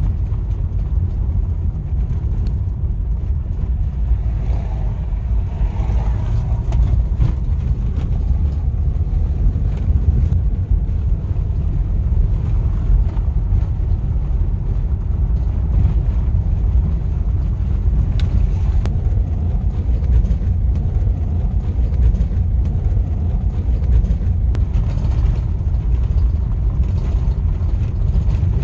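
A car driving: a steady low rumble of road and engine noise.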